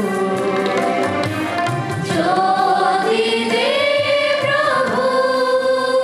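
Voices singing a devotional song with drum accompaniment; the drum strokes drop away about two seconds in and long, held sung notes carry the rest.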